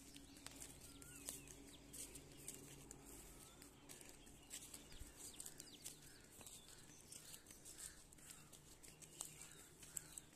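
Near silence: faint outdoor ambience with a few distant bird chirps and scattered small clicks.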